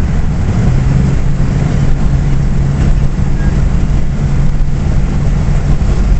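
2001 Jeep Cherokee XJ engine and road noise heard from inside the cabin as the accelerator is pressed in fourth gear, with a steady low drone from about a second in. The engine fails to kick down and pull: the check-engine light comes on and the revs sag as if the engine is about to stall, a fault the owner has not yet found.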